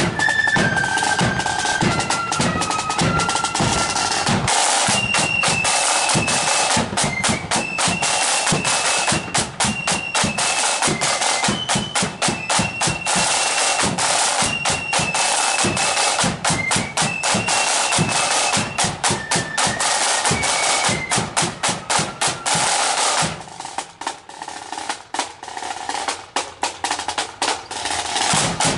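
Marching flute band playing: flutes carry a tune over rapid, dense snare drumming. About 23 seconds in the flutes stop and the drums carry on alone, quieter.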